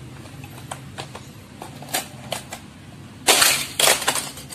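Plastic clicks and clatter from a toy race track and its toy cars being handled, with two loud, rattling clatters a little past three seconds in.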